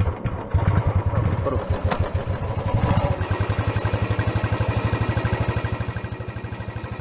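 Royal Enfield Classic 350's single-cylinder engine comes in sharply about half a second in and runs with an even, rapid beat of firing pulses. It fades near the end as the bike rides away.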